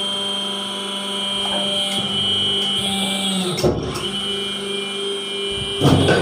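Electric sole-cutting press of a hawai chappal (flip-flop) making machine running with a steady hum while it cuts a sole from a rubber sheet. The hum wavers briefly a little past halfway, and a short knock comes near the end.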